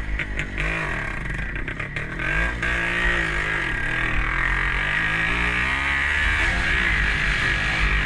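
Old Jawa motorcycle engine running under load on a steep climb, its pitch rising and falling repeatedly as the revs change. Several sharp clicks or clatters sound in the first couple of seconds.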